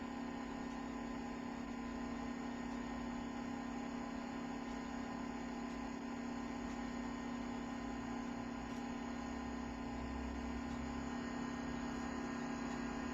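Steady low hum with no distinct events, the deep rumble beneath it growing slightly about ten seconds in.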